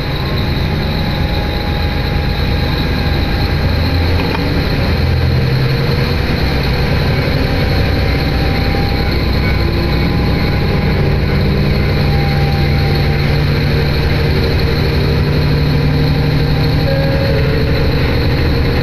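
Diesel railcar running, heard from inside the passenger cabin: a steady engine hum mixed with the rumble of the train moving along the track.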